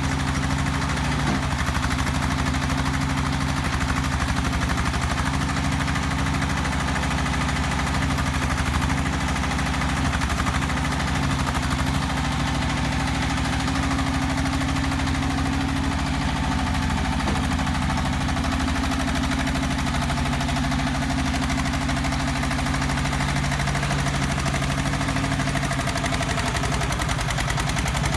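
Engine of a self-loading concrete mixer running steadily at a constant idle-like speed.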